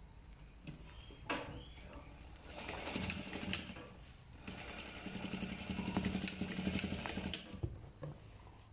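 Sewing machine stitching a shoulder seam in two runs of fast, even needle strokes: a short run about two and a half seconds in, then a longer one from about four and a half seconds to past seven, each stopping abruptly. A single click comes shortly before the first run.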